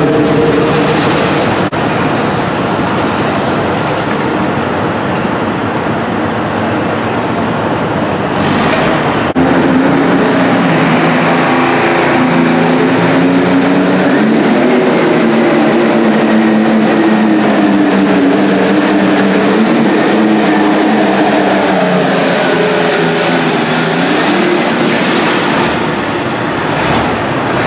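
Super stock pulling tractor engines running hard under load down the track, with an abrupt change of tractor about nine seconds in. A thin high whistle carries over the engine through the middle, and the engine drops off near the end as the pull finishes.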